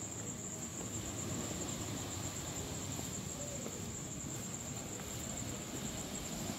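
Insects keeping up a steady, high, faintly pulsing drone over low outdoor ambient noise.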